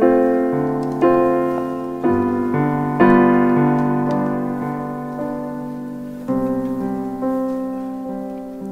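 Piano playing slow, soft chords, each one struck and left to ring and fade, with a new chord every second or so and a longer held chord in the middle.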